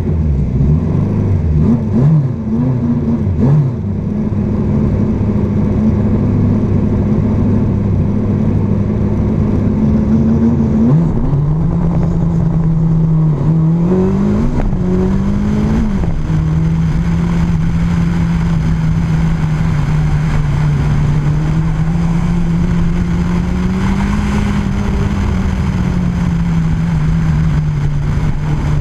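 Opel GT's four-cylinder engine idling, heard close up from a car-mounted camera, with a few quick throttle blips in the first few seconds and again about halfway through. The idle settles to a lower steady note about a third of the way in.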